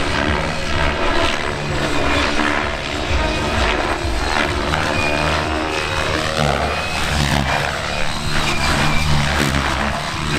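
Two electric radio-controlled helicopters flying 3D aerobatics together, their rotor blades swishing and motors whining, the pitch rising and falling with the manoeuvres.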